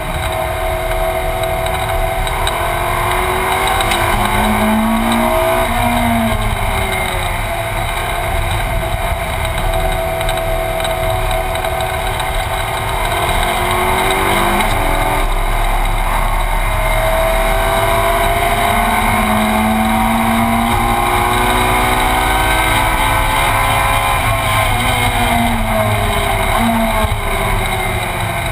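Ferrari 458 Challenge's 4.5-litre V8 racing engine heard from inside the cabin, pulling hard with its note rising through the gears and falling back on braking and downshifts, several times over.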